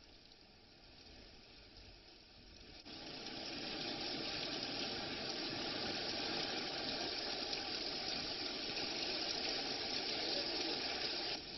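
Rain pouring down in a steady hiss, cutting in suddenly about three seconds in after a faint hiss.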